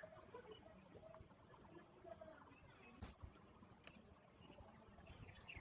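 Quiet outdoor ambience with a steady high-pitched insect drone, like crickets or cicadas, and a faint murmur. A single sharp knock about three seconds in.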